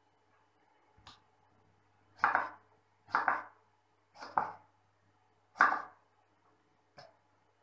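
Kitchen knife cutting fresh tomatoes on a wooden cutting board: four firm strokes, about a second apart, slicing through the tomato and onto the board, with a lighter tap of the blade before and after them.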